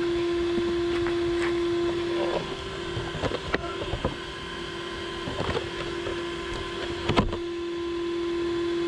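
RC truggy being handled, with irregular knocks and clicks in the middle and a sharp click about seven seconds in, over a steady electronic whine from the truck's onboard equipment.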